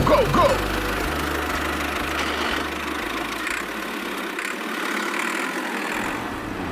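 A small motor running steadily.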